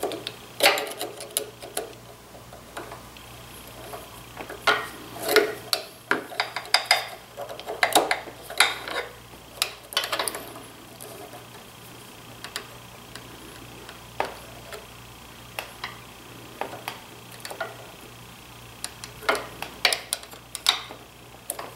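Irregular small metallic clicks and scrapes of scissor tips catching and slipping on a steel internal snap ring on a planer shaft as they try to compress it. They come in clusters, with a quieter stretch in the middle, over a steady low hum.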